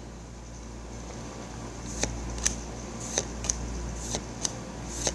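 Trading cards being flipped through by hand: a run of light, sharp card snaps and clicks starting about two seconds in, over a low steady hum.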